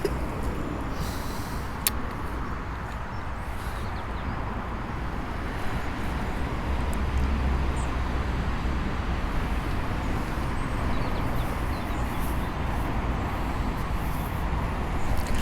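Steady low rumbling outdoor background noise with a faint hiss, a little louder in the second half, and a single sharp click about two seconds in.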